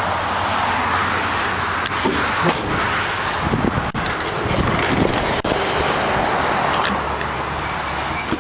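Steady roar of highway traffic with a low rumble, broken by a few light clicks and knocks in the middle.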